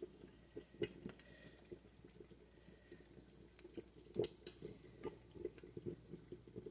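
Faint, irregular crackles and soft clicks of fingers breaking apart a dry smoked fish and picking out its bones, with a few sharper snaps, the loudest about four seconds in.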